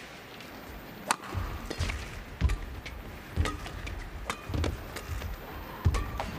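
Badminton rally: about five sharp racket strikes on the shuttlecock, roughly one a second, with the players' footsteps thudding on the court between them.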